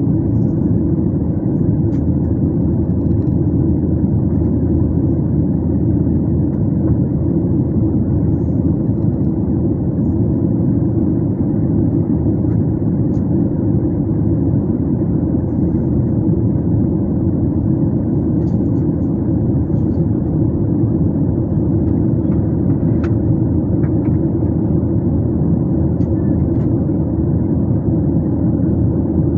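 Steady cabin noise of a jet airliner in flight: an even, deep drone of engines and airflow that does not change, with a few faint clicks.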